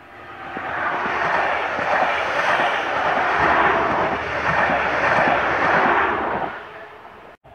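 Red DB Regio multiple-unit train passing close by: a steady rush of running and wheel noise that builds over the first second, drops away about six and a half seconds in, then cuts off abruptly just before the end.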